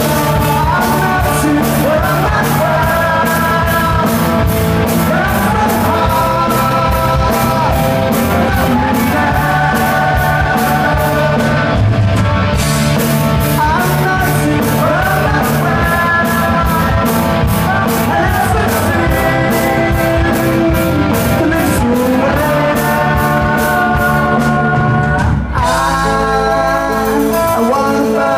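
Live rock band playing: male lead vocals with a female singer, over electric guitars, bass and drums keeping a steady beat. A brief break about 25 seconds in leads into the next section of the song.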